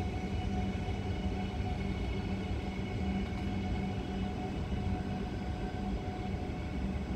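High Capacity Metro Train, an electric suburban train, running along the track: a steady low rumble with a hum of several held tones.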